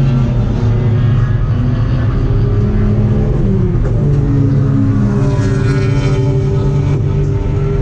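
Race car engine running under load on track, its pitch dropping about three and a half seconds in and then holding steady.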